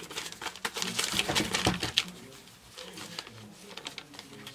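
A small paper notepad being handled close to the microphone: quick, irregular rustles and crinkles, thick for about the first two seconds and then fainter and sparser.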